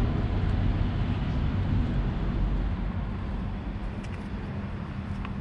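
Steady low rumble of outdoor background noise, like vehicle traffic on a nearby road, easing slightly after a few seconds.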